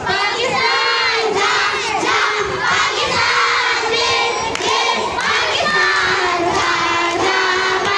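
A crowd of children shouting and cheering loudly together, over a girl singing into a microphone.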